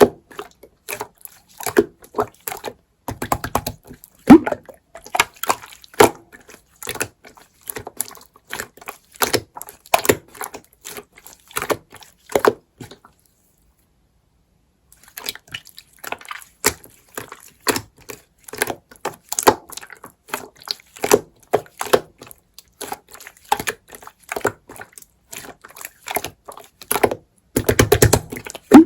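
Slime being worked by hand, giving a fast, irregular run of small wet clicks and pops. It stops for about two seconds midway, then carries on, with a dense burst of squishing near the end.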